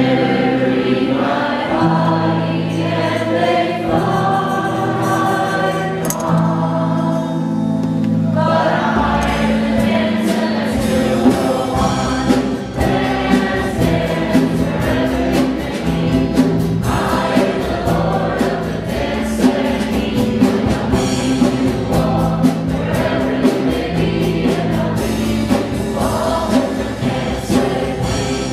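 Youth choir singing a Christian worship song with instrumental accompaniment; a steady percussion beat joins about nine seconds in.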